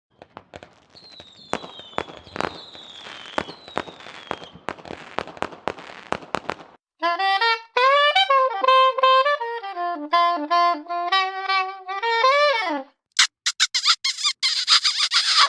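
Three separate sound effects in a row. First, scattered crackling pops with a few falling whistles. Then a short melody of wind-instrument-like notes that bends downward at its end, and finally a burst of harsh crackling hiss.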